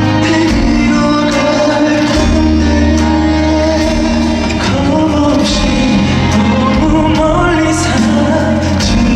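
A male singer performing a pop ballad live, backed by a band with sustained bass notes and a steady drum beat.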